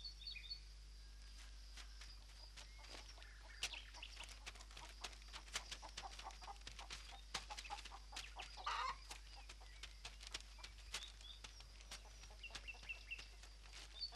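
Farmyard hens clucking in short, irregular clucks, with one louder squawk a little after the middle, mixed with quick footsteps running on dry dirt.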